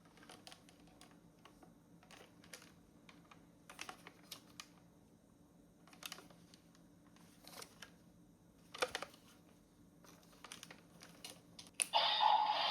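Small plastic clicks and rattles of a Premium DX Laser Raise Riser toy being handled. Near the end a sharp click sets off the toy's loud electronic sound effect.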